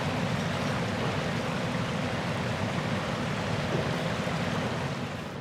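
A small burn (stream) running under a footbridge: a steady rushing of water.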